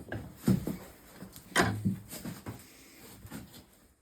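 Chisel pushed by hand through a spruce leg clamped in a vise, paring toward a stop cut: two sharp cutting knocks about a second apart, then a few lighter scrapes and taps.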